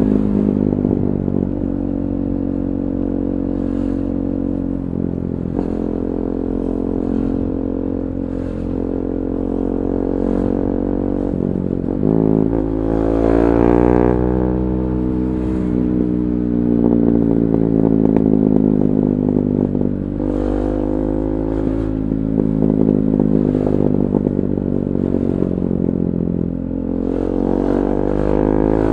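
KTM 390 Duke's single-cylinder engine running through an aftermarket Akrapovic slip-on exhaust with the catalytic converter removed. The engine note holds steady for long stretches, climbs clearly about halfway through and then eases back down.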